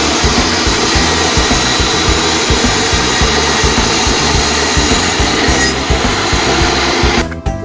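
A power tool running steadily, with a rasping, grinding noise, over background music; the tool stops near the end, leaving only the music.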